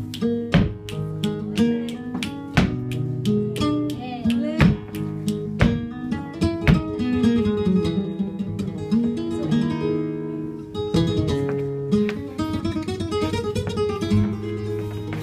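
Flamenco guitar playing alegrías, with sharp percussive strikes cutting through about once a second.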